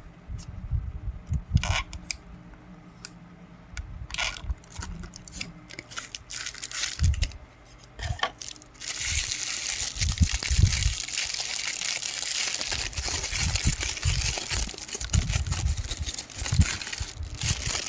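Packaging being handled and unwrapped: scattered clicks and knocks, then from about nine seconds a long stretch of dense rustling and crinkling.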